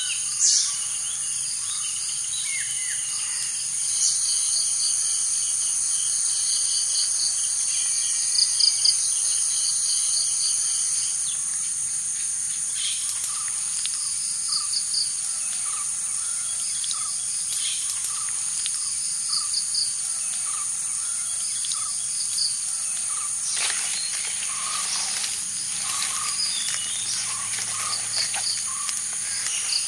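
Outdoor ambience: a steady high-pitched drone of insects, with series of short bird chirps repeating over it.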